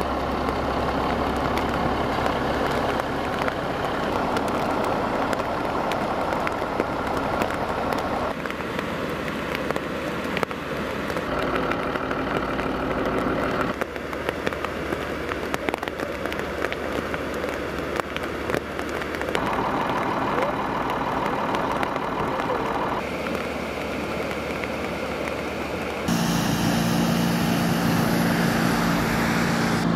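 Steady rushing noise of floodwater and rain, changing at several cuts. About four seconds before the end it gives way to a louder fire engine running its engine and pump with a steady low hum.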